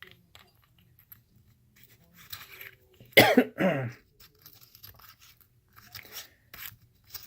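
Faint clicks and rustles of a small metal flashlight being handled as an 18650 battery is fitted into it. About three seconds in, a person coughs twice in quick succession.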